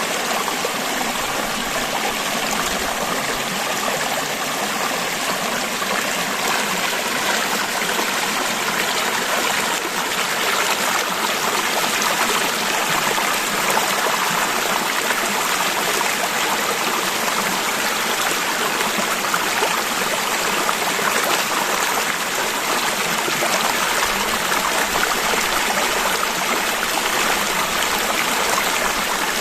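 River water flowing steadily over stones, an even babbling rush with no breaks.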